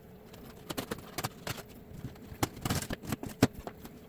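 Packaging being handled and opened by hand: a quick, irregular run of crinkles and sharp clicks.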